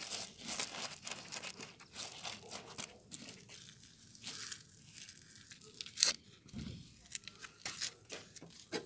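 Small white gravel stones spread and raked by a gloved hand, crunching and clicking irregularly, with the sharpest click a little past the middle. Jacket fabric rubbing close against the microphone adds crumpling noise.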